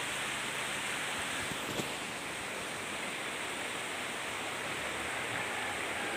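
Shallow river rushing over rocks in a steady, even roar of water.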